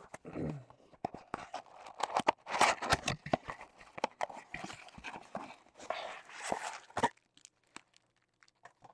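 A cardboard box being torn open by hand and a wrapped baseball pulled out: a run of irregular tearing, rustling and scraping with many sharp clicks, which thins out about seven seconds in.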